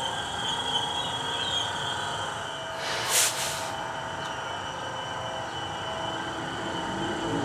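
DART electric commuter train running past, with a steady whine and rail noise. A short burst of hiss comes about three seconds in.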